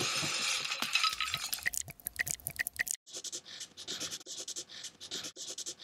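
Homemade cartoon sound effects: a noisy crash fading out over the first second, a few small clicks and squeaks, then, after an abrupt change about three seconds in, rapid scratchy rubbing strokes several times a second.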